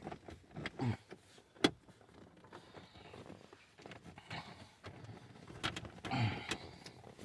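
Plastic double-DIN dash trim bezel being pushed and worked into place around the car radio: plastic creaking and scraping against the dash, with scattered sharp clicks and knocks, one louder click about one and a half seconds in.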